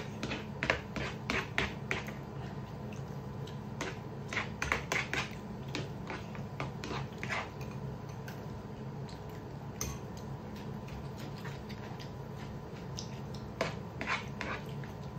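Metal spoon clicking and scraping against plates during fast eating, in irregular clusters of sharp clicks, with a steady low hum underneath.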